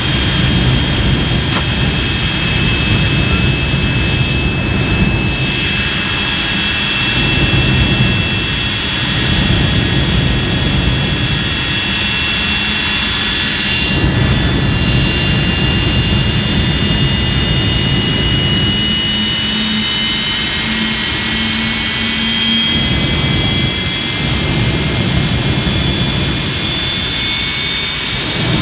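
Jet engine running at steady high power: a loud low exhaust rumble under a high turbine whine that climbs slowly in pitch, the rumble easing briefly a few times.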